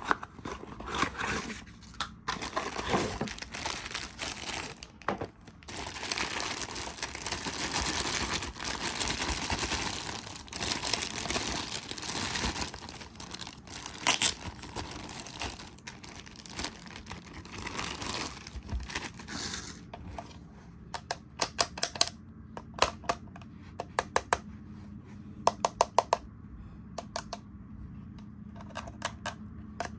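Plastic toy packaging crinkling and tearing as it is handled and opened. From about twenty seconds in, this gives way to runs of quick, sharp clicks.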